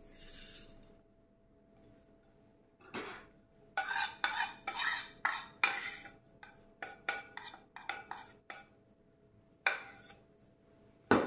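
Spice powder and salt pouring off a ceramic plate onto raw chicken in a glass dish with a short hiss. After a quiet pause comes a long run of sharp clinks and scrapes as the plate is knocked and scraped to get the last of the spices off.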